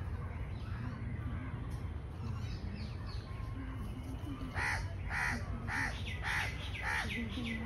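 A crow cawing six times in a row, about two caws a second, starting a little past halfway. Before that only faint bird chirps over a steady low rumble.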